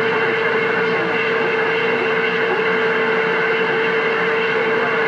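CB radio speaker giving a steady rush of static with a steady whistling tone through it, as an unmodulated carrier keys up on the channel.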